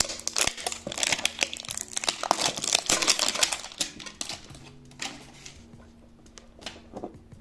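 Crinkling and rustling of plastic packaging being handled and torn open around a Pokémon TCG mini tin, dense for the first few seconds, then thinning out, over soft background music.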